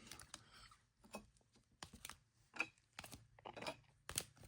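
Light, irregular clicks and taps of trading cards being handled and gathered into a stack.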